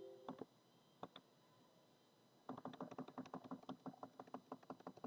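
Faint clicking of laptop keys: a few single clicks, then a quick run of about five or six clicks a second from halfway through, as device addresses are entered one after another. A faint tone fades out at the very start.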